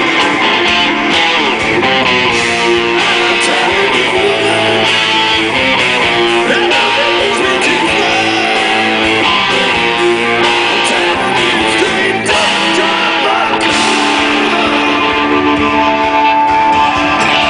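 Rock band playing live, electric guitars strumming at full volume over bass.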